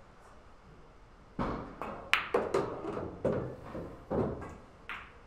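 Pool balls on a pool table: a knock about a second and a half in, then a run of sharp clicks and knocks of balls striking one another and the cushions, the sharpest click about two seconds in.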